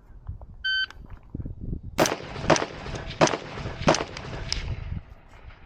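A shot timer's electronic start beep, then a string of five gunshots about half a second apart.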